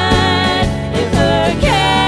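Background music with a singing voice over a steady beat.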